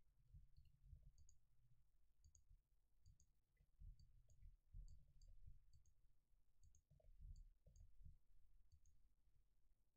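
Faint clicks of a computer mouse and keyboard being worked, many of them in quick pairs, spread through the whole stretch over a low, uneven rumble.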